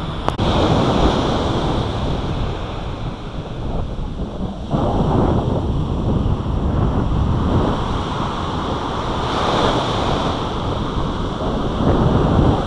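Ocean surf breaking and washing up the beach, rising and falling in surges, with wind buffeting the microphone.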